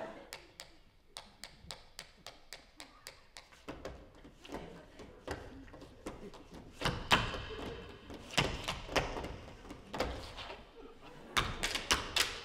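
Percussive taps and stamps of a stage dance on a wooden floor. Light, scattered clicks at first grow into heavier thumps about seven seconds in, and a quick run of taps comes near the end.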